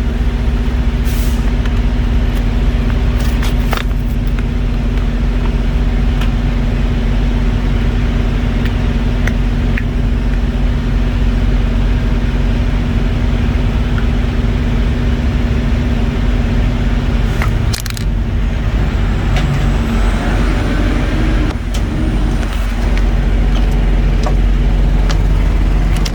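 A truck's diesel engine idling steadily, with a few light clicks of small parts being handled.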